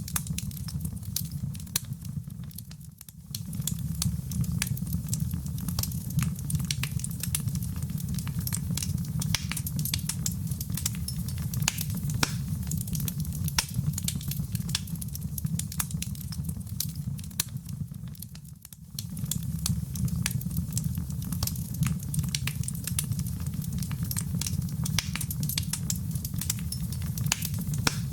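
Wood fire in a fireplace crackling, with many sharp pops and snaps over a steady low rumble of the flames. The sound dips briefly twice, about three seconds in and again about eighteen seconds in.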